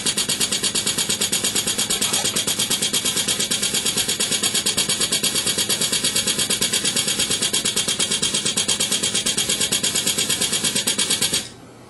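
Super Spot cold glue dot gun firing rapidly, an even run of mechanical clicks at about seven or eight shots a second (450 cycles a minute), each shot laying a dot of glue. The firing stops abruptly near the end.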